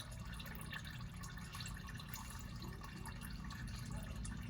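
Hot engine oil dripping and trickling from a partly loosened oil filter on a Chevrolet Silverado's 4.8 L V8, many small irregular drips over a low steady hum.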